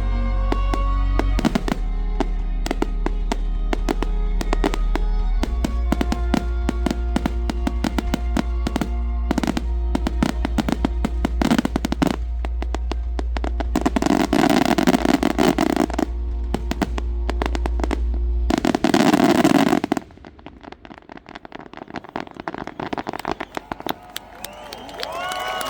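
Fireworks finale over music: firework bursts and crackles pop along with the soundtrack. The music stops about 18 seconds in, a dense loud salvo follows, then quieter scattered crackling. Near the end the crowd begins to cheer.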